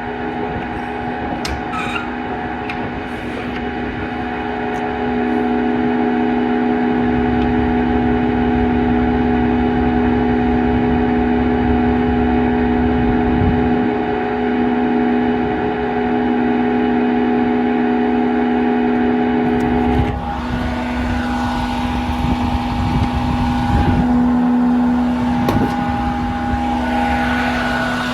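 Diesel engine of a 2013 International DuraStar service truck running steadily, with a steady whine over a low rumble that grows a few seconds in. About twenty seconds in the sound shifts, with more hiss and a changed whine.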